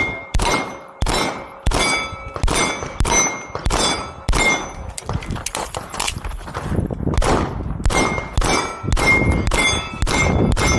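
A rapid string of handgun shots, many followed by the ringing clang of steel plate targets being hit, at about two shots a second.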